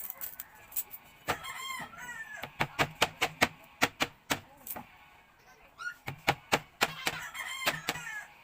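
Sugarcane being bitten and chewed: a run of sharp, crisp crunches a few times a second. A rooster crows twice in the background, once a little over a second in and again near the end.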